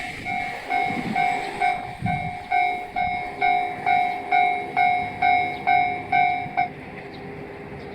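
Railway level crossing warning bell ringing in a steady repeated ding, a little over two strikes a second, then stopping about six and a half seconds in, the usual sign that the train has cleared the crossing.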